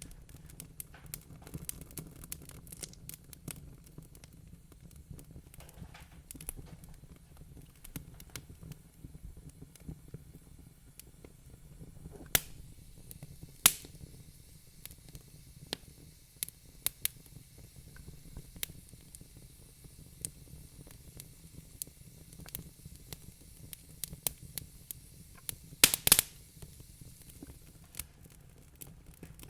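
Wood fire in a fireplace crackling, with irregular small snaps and a few louder pops, the loudest about halfway and a quick cluster near the end, over a low steady background.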